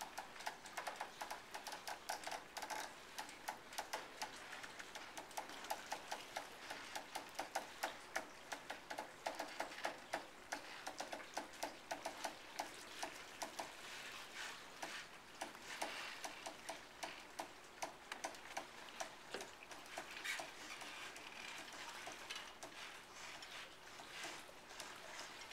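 Rapid ratcheting clicks, several a second, from a sailboat winch being cranked as the catamaran's mast is hauled upright; they thin out near the end into a soft steady hiss.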